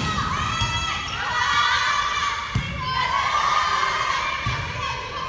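Crowd of young voices cheering and shouting together, with a few thuds (about two seconds apart) under the cheering.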